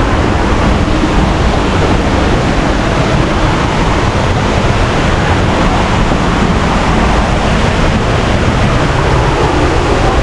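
Waterfall heard up close: a loud, steady rush of falling water that does not let up.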